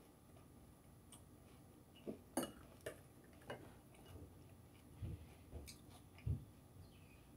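Metal spoon clicking against a cereal bowl and crunchy chewing of Cinnamon Toast Crunch and Raisin Bran: a few faint scattered clicks, the sharpest about two and a half seconds in, then some soft low thumps later on.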